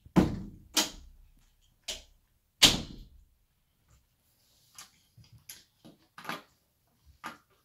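Four loud knocks and thumps in the first three seconds, among them a door being shut, then a run of lighter clicks and taps as small plastic toy pieces are handled on a wooden dresser top.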